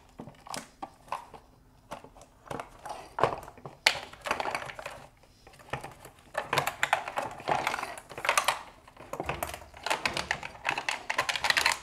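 Plastic clicks, knocks and scraping from wire harness connectors being pushed through the bottom of an empty plastic headlight housing as the housing is handled, in several bouts of rapid clicking with short pauses between.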